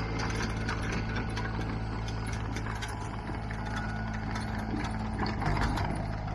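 A machine running steadily with a low hum and a fast, rattling clicking, like a ratchet or gears.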